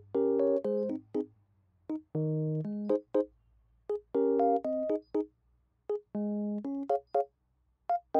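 Background music: a light keyboard tune played in short, detached chords and notes with brief silent gaps between them.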